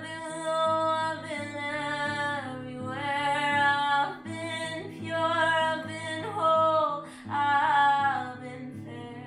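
A woman singing a slow melody in long held notes, with a pause between phrases, over acoustic guitar chords.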